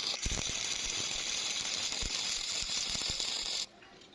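Electric stick-welding arc crackling: a steady frying hiss with irregular pops. It cuts off abruptly about three and a half seconds in.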